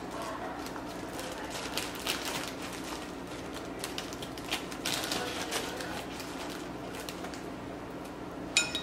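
Plastic measuring spoon scooping brown sugar and tipping it into a glass bowl: scattered light clicks and rustles, with a sharper tap and a short ring near the end.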